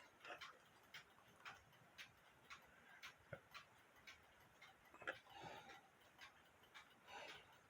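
Mechanical alarm clock movement ticking faintly and evenly, about two ticks a second, with a little soft handling noise about five seconds in.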